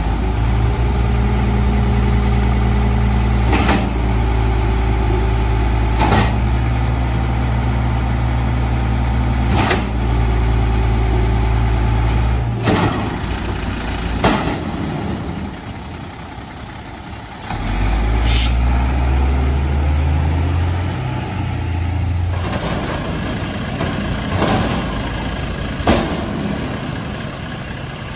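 Diesel engine of a 1996 Volvo WXLL garbage truck with an Amrep side-loader body, running at raised speed with a steady hum for about twelve seconds, then easing off. It picks up again in steps, then drops back to idle. Sharp metallic clunks come every few seconds.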